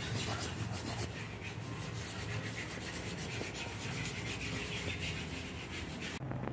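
Nail file rubbing back and forth across fingernails in quick, even strokes, stopping abruptly near the end.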